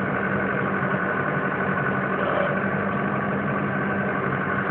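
Hyundai 110D-7 crawler excavator's diesel engine running steadily at a constant pitch, with no revving.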